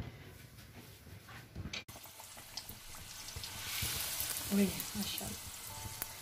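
Gol gappa puris deep-frying in hot oil in an iron kadai, sizzling while a slotted spoon presses them down. The sizzle starts abruptly about two seconds in and grows louder around the fourth second.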